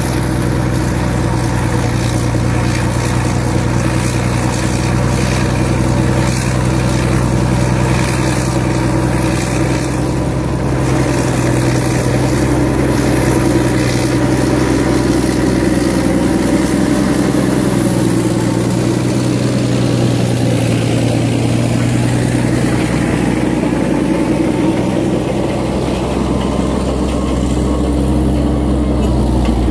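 Caterpillar D8 crawler bulldozer's diesel engine running as it pushes a pile of dirt, with a steady, deep engine note throughout.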